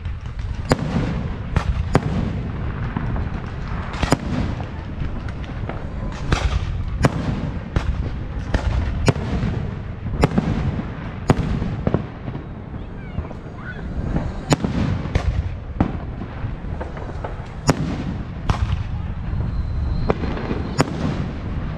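Fireworks display: aerial shells bursting in an irregular run of sharp bangs, about one a second, over a continuous low rumble of the show.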